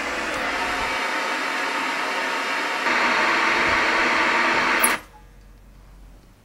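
Television static hiss that gets louder about three seconds in, then cuts off suddenly with a sharp click about five seconds in, leaving a faint low hum.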